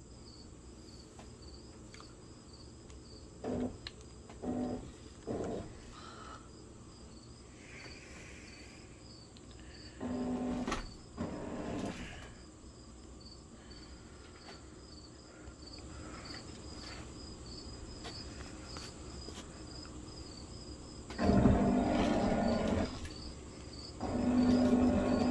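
Homemade robot platform's drive motors running in short spurts: three brief ones early, a longer one about ten seconds in, and the loudest runs of about two seconds each near the end. Insects chirp steadily in the background.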